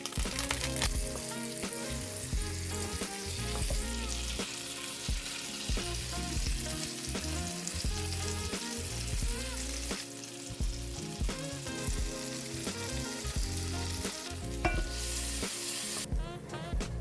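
Food sizzling in a hot frying pan, a steady crackling hiss that stops about 16 seconds in, with background music underneath.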